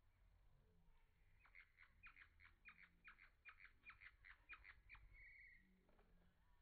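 Faint hummingbird chip notes: a rapid series of sharp chips, about four a second, for some three seconds, ending in a short buzz.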